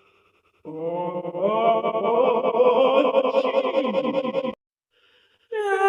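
A Numberblocks cartoon sneeze sound, edited into many copies layered at different pitches. It is a dense, wavering wall of voice-like tones that starts just under a second in and cuts off suddenly about four and a half seconds in.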